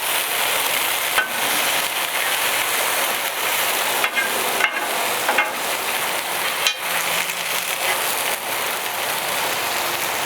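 Beef smash burger patties and onions sizzling steadily on a carbon steel griddle, with a few short clicks and scrapes of a metal spatula on the steel.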